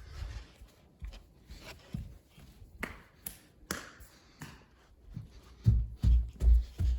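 Footsteps in a room, with scattered small taps and knocks; a little before the end the steps turn into a regular run of heavy low thuds, about two to three a second.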